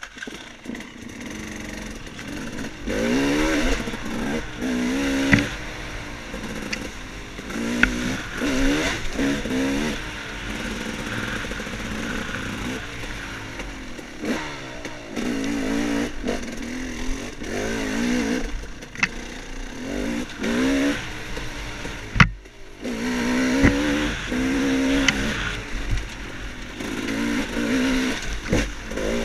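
Dirt bike engine being ridden off-road, revving up and easing off again and again as the rider works the throttle, with a few sharp knocks along the way. The sound drops out briefly about three-quarters of the way through.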